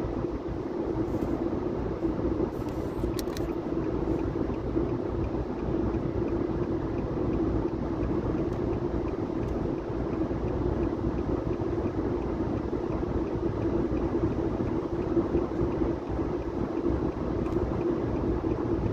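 Car driving at highway speed, heard from inside the cabin: steady road and engine noise with a constant drone.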